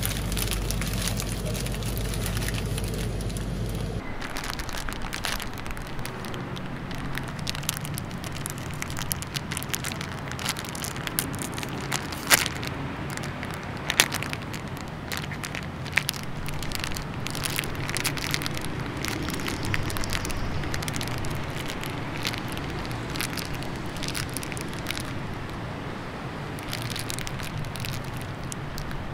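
Crinkling and tearing of a Wall's Paddle Pop plastic ice-cream wrapper as it is squeezed, torn open and peeled off the ice lolly. There is a long run of crackles, with two sharp tearing snaps around the middle. A low steady hum lies under the first few seconds.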